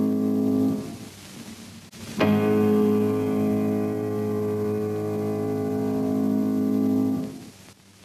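Deep piano chords for a bass-response test. One chord dies away about a second in, then a new low chord is struck a little over two seconds in and held for about five seconds before fading.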